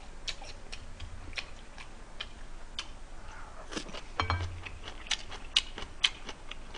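A person eating: scattered sharp clicks of chewing and of a fork and knife touching a plate, coming at an uneven pace.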